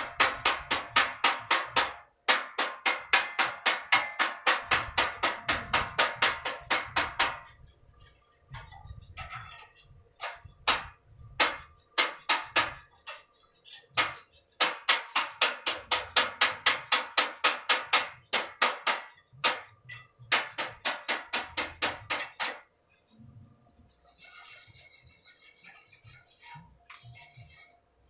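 Rapid rhythmic strokes, about four or five a second, in two long runs with slower, scattered strokes between them. A faint hiss follows near the end.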